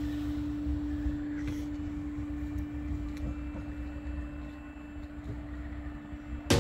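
A steady, unchanging hum over a low rumble of wind and distant traffic, easing off slightly near the end; music cuts in right at the close.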